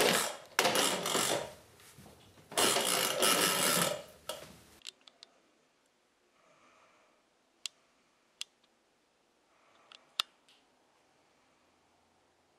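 Toy car pushed across wooden floorboards, its wheels rolling in two runs of about a second and a half each. After that, near silence with a few faint clicks.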